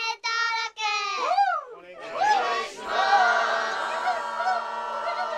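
High-pitched, cartoon-like voices calling out. First a single voice holds three even-pitched syllables and ends in a swooping up-and-down glide. From about two seconds in, several voices call out together over sustained tones.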